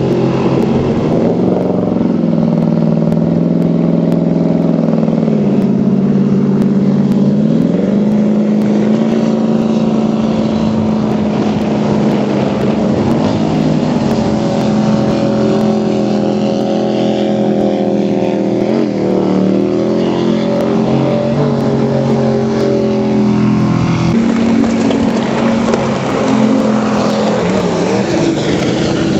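Jet boat engines running hard and revving through slalom turns, the engine pitch dropping and climbing again several times as the throttle comes off and back on.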